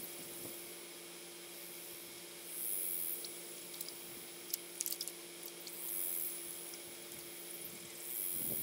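Creek-side outdoor ambience: a steady hiss of flowing water, with a short high-pitched chirring repeating about every three seconds and a few sharp clicks around the middle.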